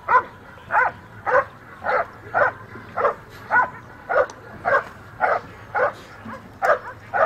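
German Shepherd giving a steady series of loud barks, about two a second, at a motionless protection helper in a bite suit: the dog is guarding the helper.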